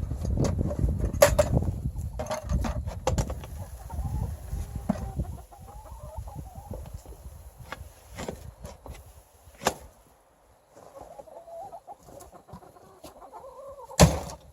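Chickens clucking and murmuring in wavering calls, with scattered clicks. A low rumble fills the first few seconds, and there is a sharp knock near the end.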